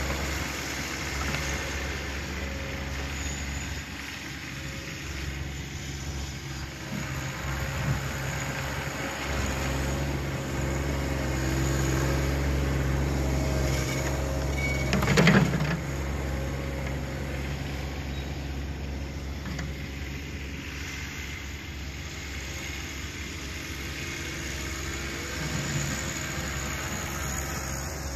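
John Deere 1026R compact tractor's three-cylinder diesel running as the tractor works snow with its front loader, louder for a stretch before a sharp clunk about halfway through, the loudest sound here. The engine is a little quieter in the second half as the tractor moves off.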